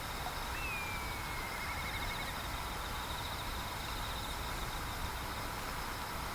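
Steady outdoor background rumble with insects trilling in a pulsing high chirp. About half a second in, a single whistled call slides down in pitch and breaks into a trill.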